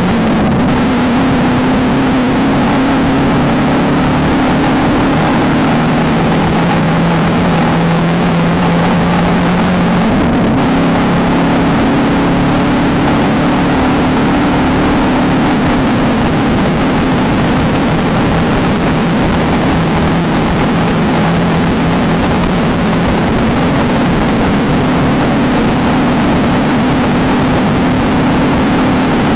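Off-road desert race car engine running hard under load over a constant loud rush of noise. The engine note drops about six seconds in and climbs back up a few seconds later.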